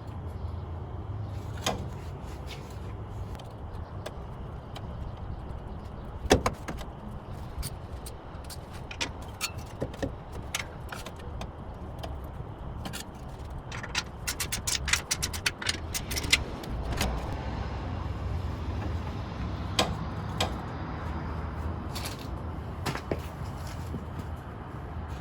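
Metal knocks and clinks from working on a steel exhaust pipe and its clamp, with one sharp knock about six seconds in and a quick run of clicks a little past the middle, over a steady low hum.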